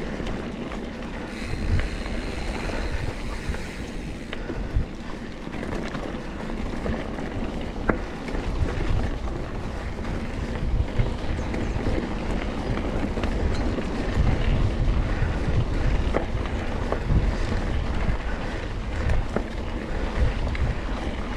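Wind buffeting the microphone as a mountain bike rides down a rough trail. Over the rumble come the bike's rattles and several sharp clicks and knocks.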